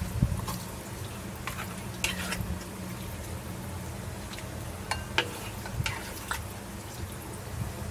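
A wok spatula stirring and scooping curry chicken and potatoes in a wok, with a few short scrapes and clinks against the pan and a bowl, over a steady low hum.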